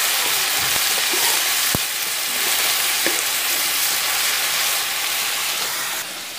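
Freshwater snails sautéing in a wok with ginger, garlic and chilies, sizzling steadily, with a few light knocks of the spatula as they are stirred. The sizzle drops a little near the end.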